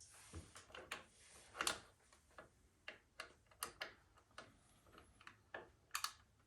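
Faint, irregular light metallic clicks and taps of a 3/16 Allen wrench and small bolts being worked on a motorcycle's shifter bracket, the sharpest clicks about a second and a half in and near the end.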